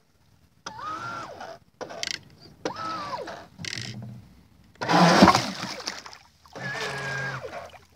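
Electric motor of a Streamline RC Thrasher jet boat running on a 4S battery, throttled in three short blips, each a whine that rises and then drops, with the jet pump churning water. About five seconds in there is a loud splash.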